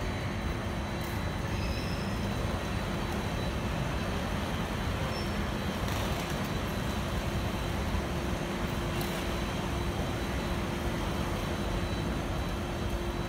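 Steady mechanical rumble and hum of an airport terminal overlooking the apron, with one steady low tone and a couple of faint clicks.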